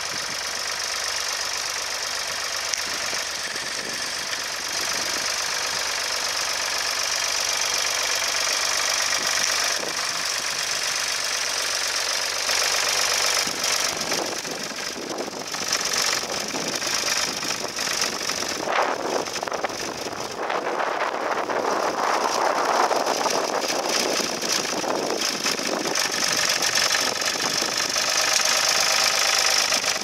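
Ford 2600 tractor engine running steadily while it pulls a mounted plough through the field.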